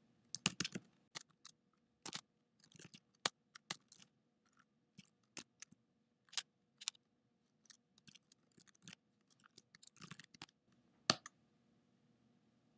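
Typing on a computer keyboard: uneven runs of keystrokes with pauses between them, and a louder key press near the end.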